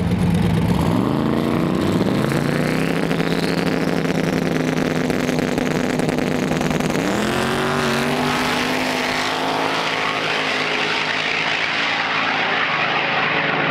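Drag-racing cars at the starting line. An engine revs up about a second in and holds at a steady high pitch while the cars are staged. About seven seconds in they launch and accelerate hard down the strip, the engine note climbing and then fading into a rushing noise as they pull away.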